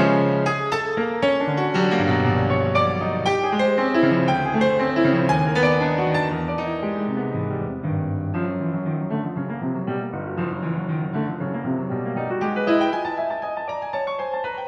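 Solo piano music, dense chords with many quick notes. It thins out and gets a little quieter about halfway through, then busies up again near the end.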